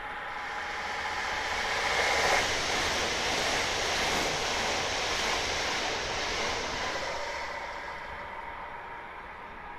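A high-speed electric train passing at speed, with a rush of wheel and air noise. The rush swells as the train approaches, peaks about two seconds in, stays loud while it runs by, and fades as it goes away.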